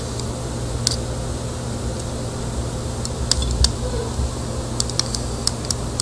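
Light, irregular clicks and ticks of a hand tool nicking and scraping the plastic insulation off the end of a cable, a few scattered at first and more close together near the end, over a steady low hum.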